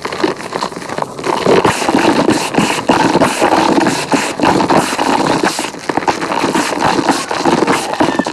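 Gym chalk mixed with cornstarch and holi powder being crushed and squeezed by hand: a dense, unbroken run of crunching and squeaking with many sharp crackles.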